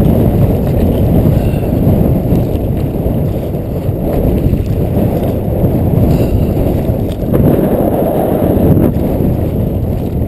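Strong wind buffeting the microphone: a loud, steady low rumble that rises and falls in gusts.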